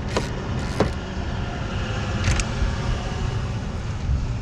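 Steady low background rumble, with a couple of sharp metal clicks and a short scrape from a socket wrench being worked on the bolts of a generator's recoil starter cover.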